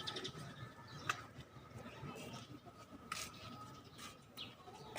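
Faint birdsong: short high chirps over a thin steady tone, with two sharp clicks, about a second in and about three seconds in.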